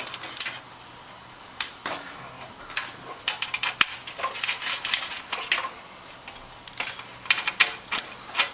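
Irregular metallic clicks and taps, some in quick runs, as a brass motherboard standoff is screwed into a computer case with a small 5 mm socket.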